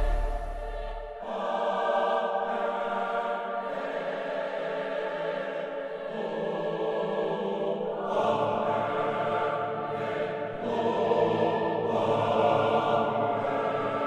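Ambient soundtrack music of held, choir-like chords that change every few seconds. A deep bass drone under it stops about a second in.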